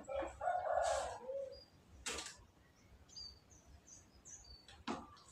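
A few short rasping strokes, the loudest and longest near the start and another at about two seconds, with small birds chirping faintly and briefly in the middle.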